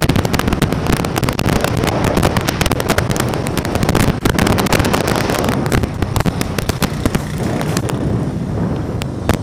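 Wind buffeting the microphone of a camera on a moving vehicle, a dense crackling over a low rumble of the ride, easing near the end.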